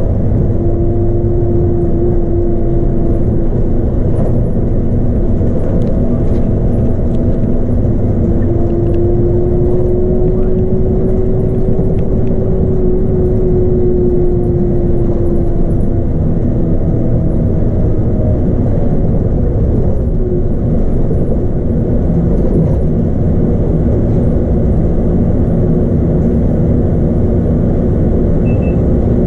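A Scania K310UB bus's 8.9-litre five-cylinder DC9 diesel and ZF Ecomat six-speed automatic drivetrain, heard from inside the cabin, running with a steady low rumble. A drivetrain whine comes in briefly near the start and again for several seconds midway, rising a little and then fading.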